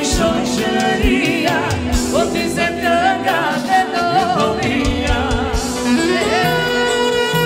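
Live Albanian folk dance music for a valle: a band plays an ornamented, wavering lead melody over a regular beat, settling into long held notes near the end.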